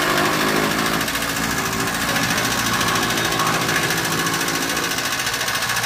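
Electric chaff cutter with a 3 hp single-phase motor running and chopping green fodder, a steady mechanical clatter with a rapid, even rhythm.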